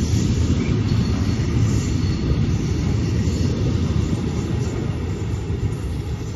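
Container freight train rolling past at speed: a steady low rumble of wagon wheels on the rails, easing a little near the end as the last wagons go by.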